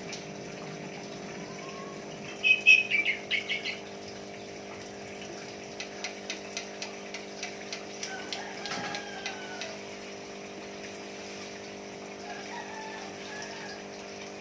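A starling (jalak) calling: a quick burst of loud chattering notes a few seconds in, then a run of sharp clicks and a few short whistles. A steady hum runs underneath.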